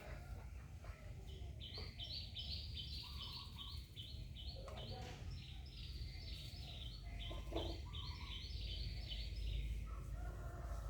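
Birds chirping in quick, repeated high notes that step up and down in pitch, starting about a second in, over a steady low rumble.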